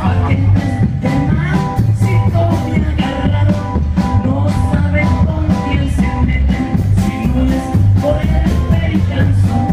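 Live norteño band playing a corrido: drums keeping a steady beat under a heavy bass line, with guitar and keyboard, loud and roomy as heard from the crowd.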